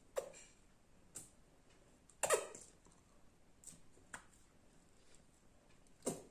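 Small silicone suction cups pulling and sliding over oiled facial skin, giving about six short, wet suction pops and squelches at uneven intervals, the loudest about two seconds in.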